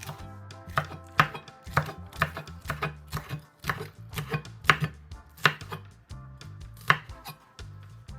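Knife chopping on a cutting board, about a dozen irregular chops, over soft background music.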